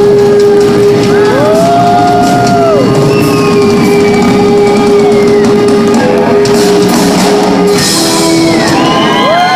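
Live rock band playing loud in a large hall: electric guitar with sustained, bending notes over a drum kit, with a bright cymbal-like burst about eight seconds in.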